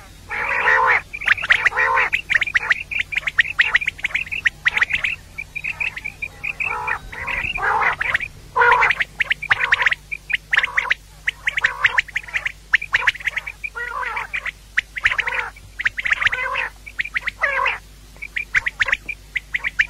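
Female common quail calling: a rapid run of short, harsh call notes, repeated in quick clusters with brief pauses.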